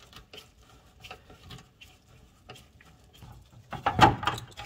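Hand tools working on a car body: scattered light clicks and ticks, then a louder clatter about four seconds in.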